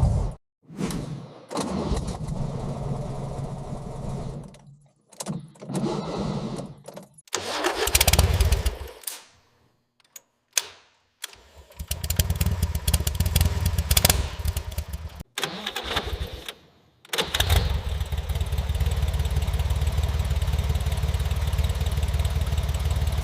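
A rebuilt 1967 Volkswagen Beetle's air-cooled flat-four engine starting: several short bursts of engine sound with breaks between them. About 17 seconds in it settles into steady running.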